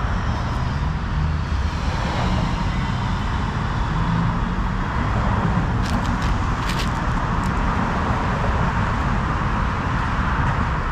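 Steady road traffic noise: cars running past with a low engine rumble and tyre hiss, one passing vehicle's pitch falling away a few seconds in. Two short clicks come near the middle.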